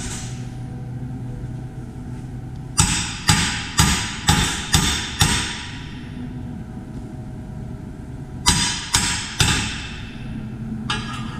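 Hammer blows on thick steel plates: six sharp metallic strikes about two a second, then after a pause three more, each ringing briefly. The blows knock the 19 mm plates together and into square.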